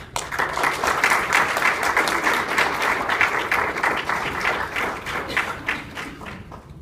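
Audience applauding, many hands clapping together; it starts suddenly and thins out near the end.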